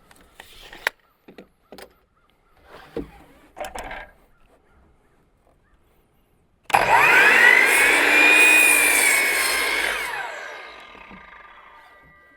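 A few light knocks and clicks of boards being handled, then, about seven seconds in, an electric saw switches on and cuts through wooden clapboard siding. Its pitch rises as the blade spins up, holds during the cut, then falls as the blade winds down and fades out.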